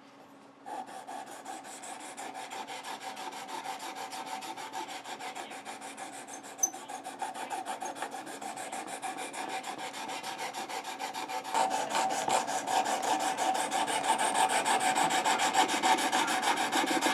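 A 600-grit sharpening stone on a Work Sharp guided sharpener stroked rapidly back and forth along the edge of a Leatherman Free T4 knife blade, honing the edge. Steady scraping with a steady ringing note under it, getting louder about two-thirds of the way through.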